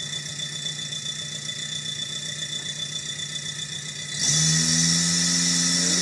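A low steady hum. About four seconds in, an overhead electric hoist motor starts abruptly and runs steadily with a hum and a hiss, lowering the Model A body onto its frame.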